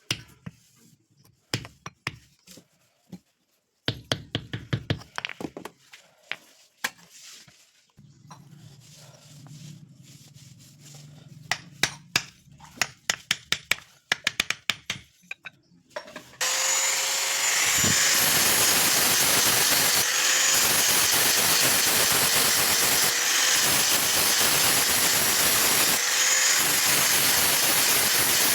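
Irregular sharp metal clicks and scrapes from work on a khurpi blade, some in quick runs. About sixteen seconds in, a loud steady hissing machine noise with a faint whine starts suddenly and keeps running.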